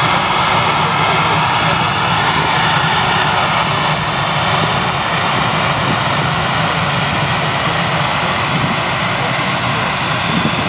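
Airbus A319 jet airliner's twin engines running during its landing rollout: a loud, steady engine noise that holds even throughout.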